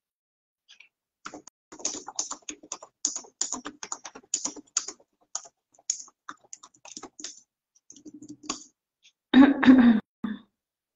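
Irregular clicking of keys being typed for several seconds, then a short, louder burst of noise about nine seconds in.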